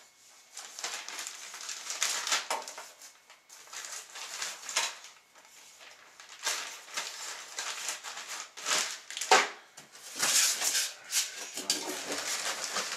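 Clear plastic packaging bags rustling and crinkling in irregular bursts as parts are pulled from them and moved about in a cardboard box.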